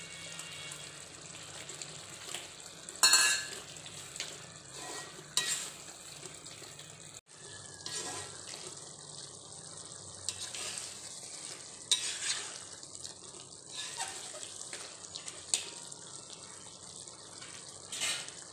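Mutton masala sizzling in a kadai while a perforated steel ladle stirs and scrapes through it, with sharp scrapes of the ladle against the pan every few seconds, the loudest about three seconds in. The gravy, with chopped garlic just added, is being fried down toward a dry mutton varuval.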